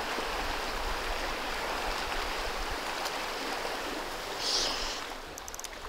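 Klamath River riffle rushing steadily, a fast shallow run of flowing water close by. A brief higher hiss about four and a half seconds in, and a few faint ticks near the end.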